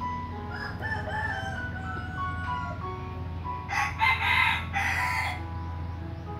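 Background music with steady chiming notes. About four seconds in, a rooster crows loudly for about a second and a half, in two parts.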